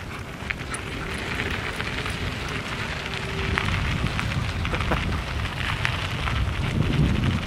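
Wind buffeting the microphone in a low rumble, with a steady crackle of wheels rolling over a gravelly dirt trail, growing a little louder over the second half.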